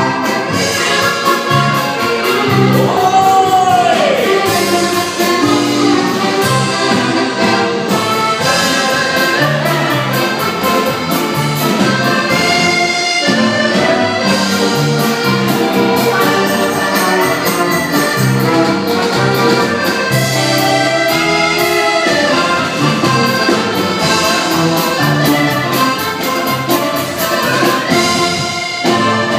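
Live accordion dance-band music: two accordions over a Ketron Audya arranger keyboard supplying brass-like lines, bass and a steady beat.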